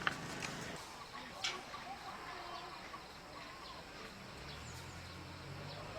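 Outdoor rural ambience: faint bird chirps and distant voices, with a sharp click just after the start and another about a second and a half in. A low steady hum comes in near the end.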